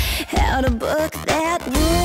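Background music: a melodic lead line that glides and bends in pitch over a bass line.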